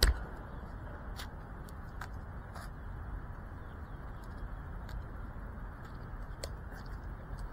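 Steady low outdoor rumble on a small camera microphone, with scattered faint clicks and a thump right at the start; no drone motor sound.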